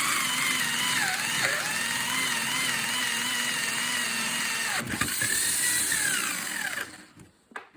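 Power drill spinning a hole saw as it re-drills a hole through a screwed-down scrap-wood guide. The motor whine dips in pitch twice, then spins down and stops near the end, followed by a couple of light clicks.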